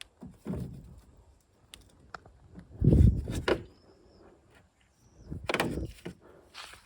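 A few dull knocks and clatters of hands working on a car, the loudest about three seconds in, with small sharp clicks between them.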